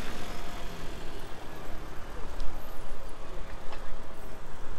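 Street traffic noise heard from a moving bicycle: a steady rush of road noise with a few faint clicks.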